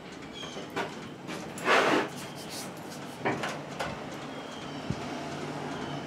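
A few short scrapes and knocks as the old walk-behind tiller is handled at its handlebar, the loudest a brief scraping rush about two seconds in, with a sharp click near the end. Faint bird chirps come through, and a low steady hum starts about five seconds in.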